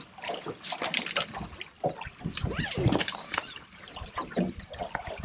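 Water splashing and dripping with small irregular knocks in a boat while a freshly caught brown trout is handled over the side.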